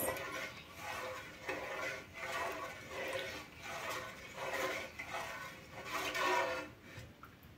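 Spatula stirring milk slowly in a metal bowl: a run of soft liquid swishes and light scrapes against the bowl, roughly one stroke every half second to second, dying away shortly before the end. This is the gentle stir that blends yogurt culture into warm milk without beating it.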